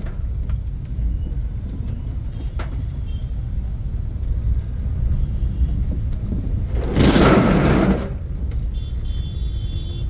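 Steady low rumble of a car driving on a wet road, heard from inside the cabin. About seven seconds in, a loud rush of water hits the car for about a second.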